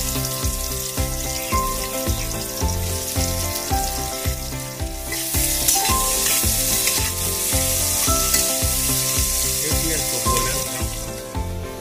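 Sliced onions sizzling in hot oil and ghee in a pressure cooker as they are stirred with a spatula. The sizzle grows louder about halfway through. Background music with a steady beat plays underneath.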